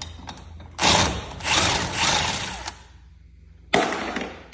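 Impact driver with a 9/16 socket hammering, backing out a bolt on garage door spring hardware: one run of about two seconds, then a shorter one near the end.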